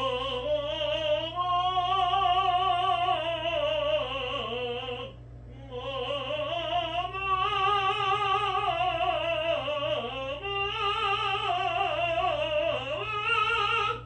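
Unaccompanied male tenor singing warm-up triad arpeggios on an open vowel in a classical, bel canto style, with a full vibrato. Three phrases, each climbing and then coming back down in pitch, with a quick breath between them.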